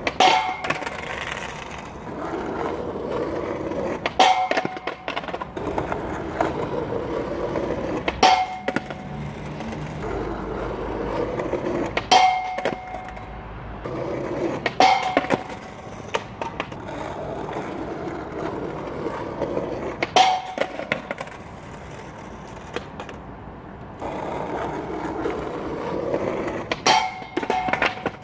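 Skateboard wheels rolling on rough asphalt, broken about seven times by sharp clacks with a short metallic ring as the board hits a low square metal flat bar and slaps down on the pavement during repeated grind attempts and bails.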